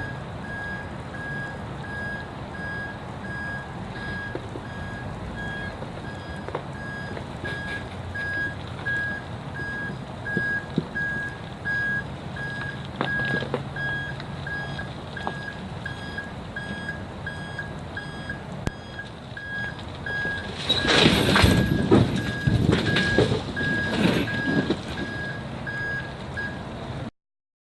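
A vehicle's reversing alarm beeping steadily, about two beeps a second, over the low running of its engine as it backs a boat trailer. About three quarters of the way through, a few seconds of loud, irregular noise rise over it, and near the end the sound cuts off suddenly.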